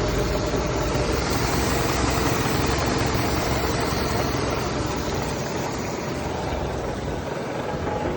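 Mercury 150 hp outboard engine running steadily on a test run after a major overhaul, easing a little quieter in the second half.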